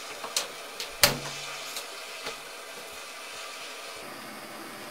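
Handheld blowtorch flame hissing steadily as it heats a metal branding iron, with a few light clicks and knocks, the loudest about a second in.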